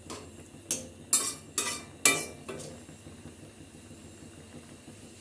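A metal utensil knocking and scraping against a cooking pot, about five sharp clinks in the first two and a half seconds, then a faint steady hiss.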